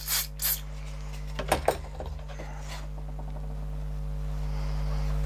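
Two short hissing bursts of aerosol contact cleaner sprayed onto a switch's corroded ring contacts to dissolve the crud, then a couple of light knocks about a second and a half in. A steady low hum runs underneath and grows louder toward the end.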